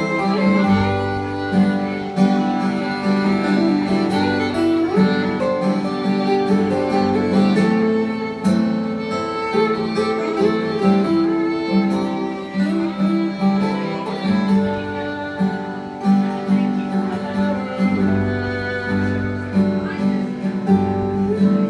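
Acoustic trio of fiddle and two acoustic guitars playing an instrumental passage, the fiddle carrying the melody over the guitars' steady rhythm.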